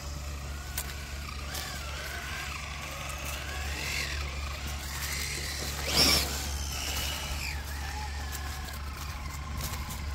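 Electric motor of an RC scale crawler whining, its pitch rising and falling as the truck speeds up and slows down. About six seconds in there is a short, loud scrape.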